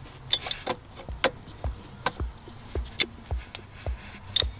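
Sharp, irregular metal clicks and clinks of a hand tool tightening the screws on a fuel rail pressure sensor. Background music with a steady low beat runs under them.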